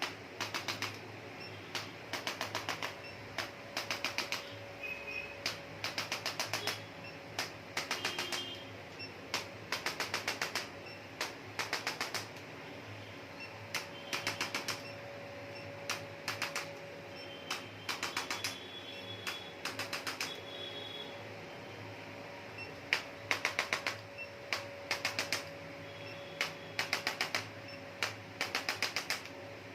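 Rapid bursts of sharp taps, about half a dozen quick strikes at a time, repeating roughly once a second: hands striking the body in percussive massage.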